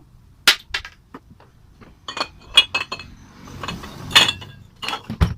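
Glass bottles clinking: several sharp clinks, each with a short ring, a brief scraping rustle midway, and a dull thump near the end.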